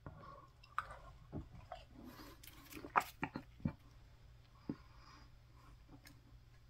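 A person chewing a mouthful of a hard, glazed pie crust: faint, scattered small crunches and clicks, most of them bunched about three seconds in.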